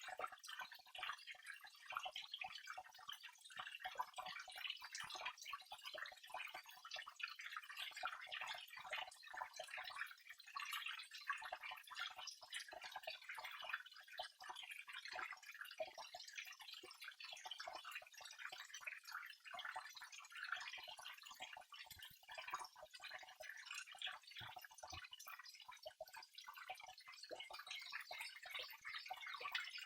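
Small waterfall: water trickling and splashing, heard as a faint, dense, irregular run of small drips and splashes with no deep rumble.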